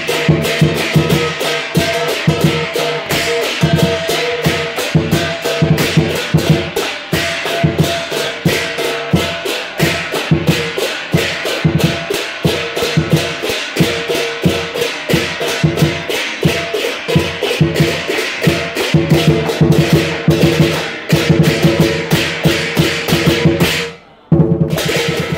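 Southern lion dance percussion: a large lion drum beaten in a fast, steady rhythm with cymbals clashing and a gong ringing over it. It cuts out for a moment near the end.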